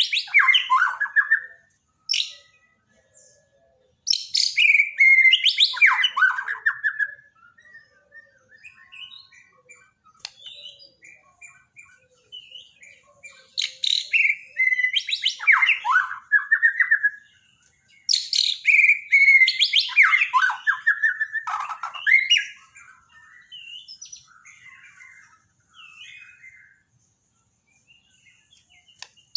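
White-rumped shama (Borneo murai batu) singing: loud phrases of rich whistles that start high and sweep downward. There are about five phrases, with softer scattered notes between them.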